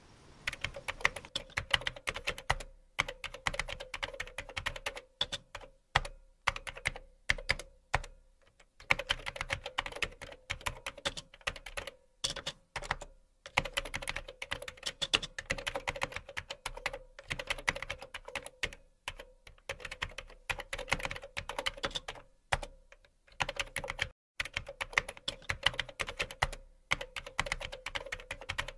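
Fast typing on a computer keyboard: quick runs of key clicks in bursts, broken by short pauses.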